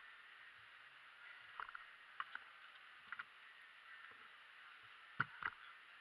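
Faint clicks from a 4x4 puzzle cube handled during inspection over a steady hum of background noise. About five seconds in come two sharp knocks a quarter second apart as the cube is set down on the mat and the hands go onto the timer pads.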